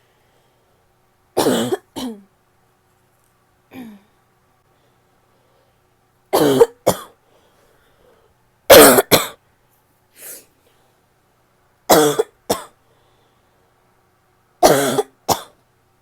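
A woman's barking cough: about seven bouts a couple of seconds apart, most a quick pair of coughs. Two are fainter single coughs, and the loudest pair comes about halfway through.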